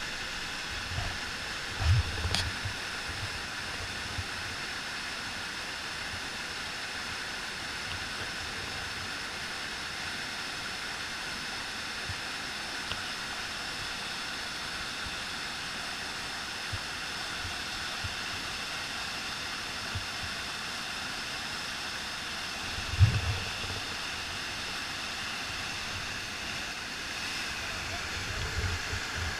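Steady rushing of whitewater at a river waterfall. A few low thumps break through it, the loudest about 23 seconds in.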